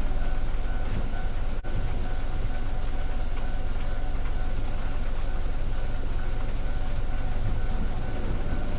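A train passing over the level crossing, a steady low rumble.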